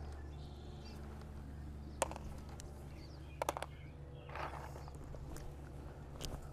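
Small clicks and taps of hands working wires at a plastic weatherproof electrical box: a sharp click about two seconds in, a quick run of three or four clicks a little later, a brief rustle, and one more click near the end, over a steady low hum.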